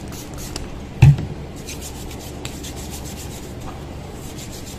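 A plastic trigger spray bottle spritzed a few quick times onto the hands, a dull thump about a second in, then palms rubbing together in two spells.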